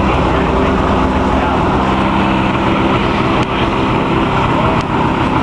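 Ski-Doo snowmobile engine idling steadily, with two light clicks partway through.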